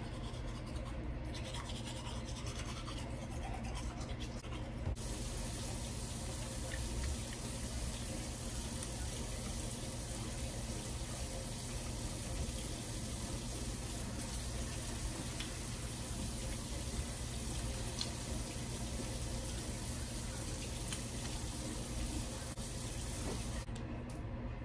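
A toothbrush scrubbing teeth for the first few seconds, then a bathroom tap running with a steady rush of water from about five seconds in, cutting off just before the end.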